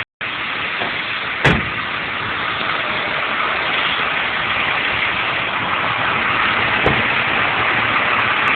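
Vehicle engine idling steadily, with a single thump about a second and a half in and a lighter one near the end.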